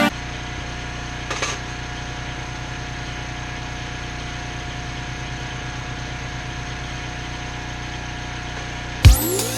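An engine idling steadily with an even, unchanging hum. Electronic music cuts in near the end.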